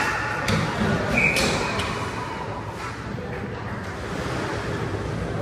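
Ice hockey game ambience in a rink: a steady din with spectators' voices, and a few sharp clacks of sticks and puck in the first two seconds.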